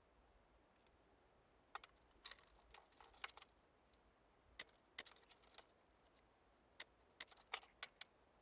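About a dozen light, sharp clicks and taps at uneven intervals, from small plywood jig parts and tools being handled during assembly.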